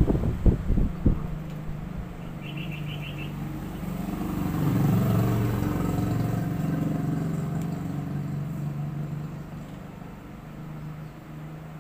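Several dull knocks near the start, then a low mechanical drone that swells about four seconds in and slowly fades away.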